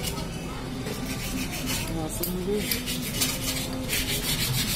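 Small steel gearbox parts clinking as a ring is worked onto a Mahindra Bolero NGT 530 gearbox shaft by hand. Two spells of rhythmic rasping scrape come through, about two seconds in and again near the end.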